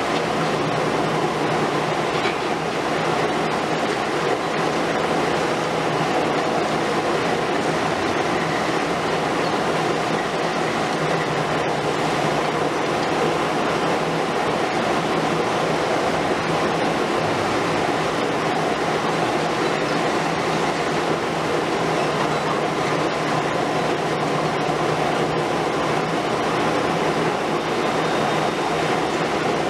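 Liebherr R 950 Demolition long-front excavator at work: its 200 kW diesel engine and hydraulics running steadily under load, mixed with the continuous crunching and crumbling of concrete as the demolition tool breaks into the wall, with no single crash standing out. A second excavator runs in the background.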